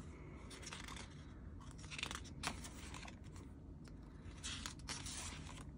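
Pages of a stapled album photobook being turned and smoothed by hand: a few faint, brief paper rustles.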